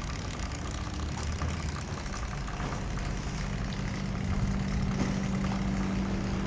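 An engine idling steadily, with a low hum that picks up a steady tone and grows slightly louder about three seconds in.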